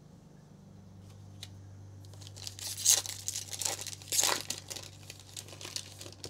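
Foil wrapper of a Panini Prizm football card pack being torn open and crinkled, starting about two seconds in, with two louder rips about three and four seconds in.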